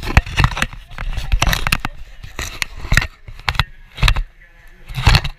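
Handling noise on the camera's microphone: irregular rustling, scraping and bumping in uneven bursts as the camera is moved around.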